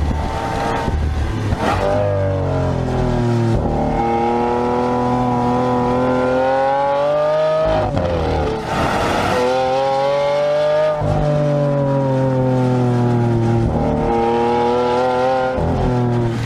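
Lamborghini Aventador's V12 engine heard from inside the cabin, revving up and easing off again several times: the pitch climbs under acceleration and drops back when the driver lifts or shifts. A short harsh rasp comes about eight seconds in.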